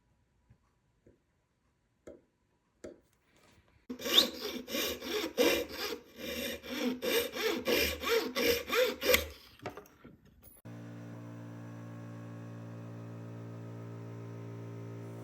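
A few faint clicks, then a run of rhythmic rasping strokes of a hand tool working the ring metal, about two to three strokes a second for some five seconds. About two-thirds of the way through, a steady machine hum starts and holds.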